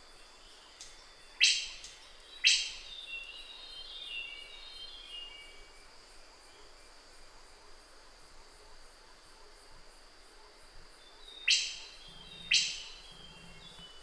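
Lesser melampitta calling: two sharp, loud click-like notes about a second apart, a "puk-lik", given about a second and a half in and again near the end. A steady high insect drone runs behind it.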